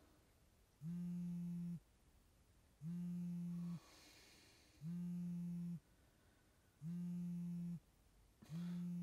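Mobile phone vibrating for an incoming call: a steady low buzz lasting about a second, repeating every two seconds, five times.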